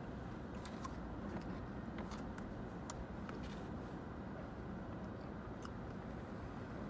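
Quiet chewing: a few faint, sharp mouth clicks scattered over a steady low background hum.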